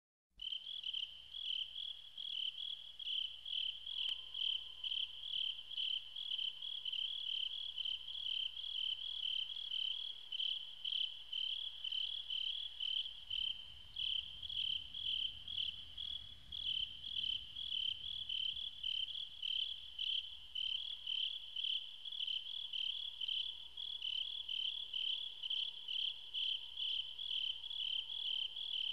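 Insect chirping in a steady rhythm: a high-pitched trill of a few chirps a second, starting abruptly and continuing without a break.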